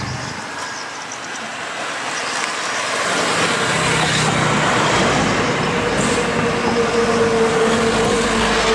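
Road traffic crossing the bridge: a steady rush of passing vehicles, with a vehicle's engine hum building about three seconds in and holding a steady tone as it passes close by.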